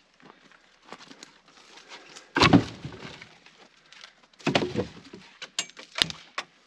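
Two heavy knocks about two seconds apart, each with a short rattle of cracks, then a few sharp clicks near the end.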